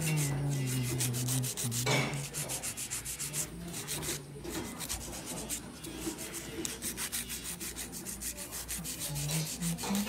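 Hand nail file rasping back and forth across the tips of long acrylic stiletto nails in quick, even strokes, rounding off the sharp points so they won't hurt the wearer.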